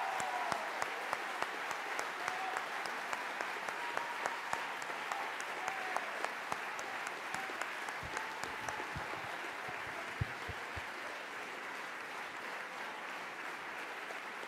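Large indoor audience applauding: rhythmic clapping in unison, about two or three claps a second, loosening after about eight seconds into more scattered applause that slowly gets quieter.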